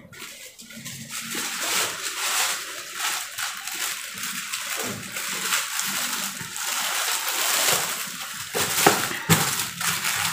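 Thin clear plastic bag crinkling and rustling as it is pulled over and smoothed around a box, with a sharper snap near the end.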